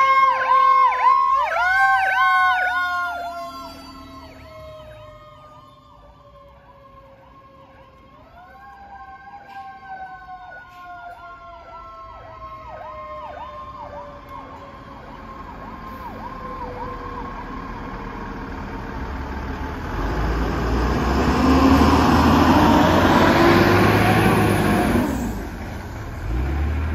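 Fire apparatus sirens heading away: an electronic siren sweeps up and down steadily, while a mechanical siren winds up twice and slowly coasts down, fading into the distance. Then a second fire engine pulls out close by, its diesel engine loud for several seconds before dropping off near the end.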